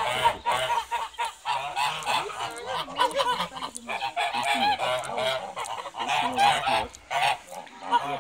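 A flock of domestic geese honking, many short calls overlapping one another without a break.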